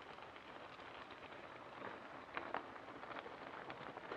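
Mountain bike tyres rolling over loose gravel: a faint crunching hiss with scattered small clicks and pops of stones, a few louder ones about halfway through.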